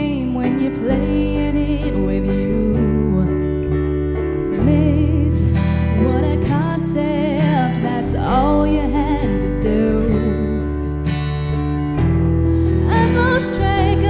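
A woman singing a song with acoustic guitar accompaniment.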